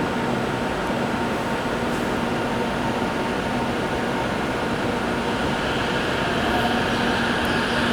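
Limited express train running past on the rails as it pulls out of the station: a steady rumble of wheels and running gear, with a higher hiss building after about six seconds.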